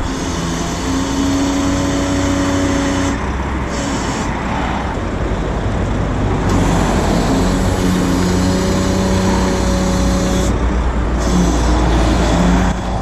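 Heavy truck engine running at low speed with a deep, steady rumble. A high hiss cuts in and out several times.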